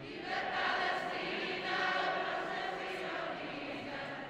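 A crowd of many voices singing a song together, holding long notes.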